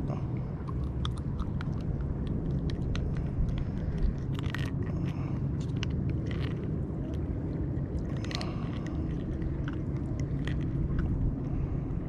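Hands unhooking a grunt: scattered small clicks, crackles and scrapes as the hook and soft bait are worked out of the fish's mouth, over a steady low rumble.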